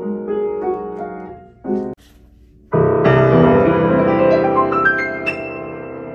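Fazioli grand piano being played: a gentler passage that stops just before two seconds in, a short pause, then louder, fuller playing with chords and high notes from a little under three seconds in.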